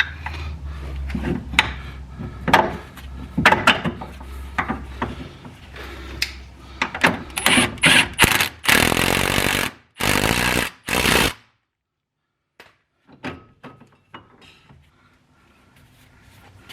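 Metal clinks and knocks of hand tools and suspension parts being fitted, then a power tool, likely an impact wrench, run in three short bursts about halfway through as bolts are driven home.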